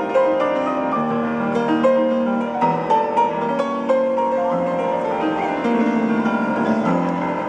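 Instrumental music: a flowing melody of quick struck notes with a piano-like sound, each note ringing on briefly.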